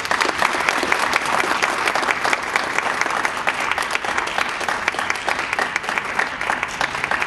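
Audience applauding: a room full of people clapping steadily for an award recipient, the claps thinning slightly near the end.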